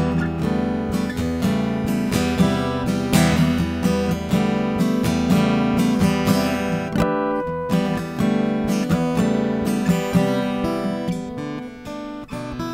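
Solo steel-string acoustic guitar playing a song's instrumental introduction, strummed chords in a steady rhythm before the vocals come in.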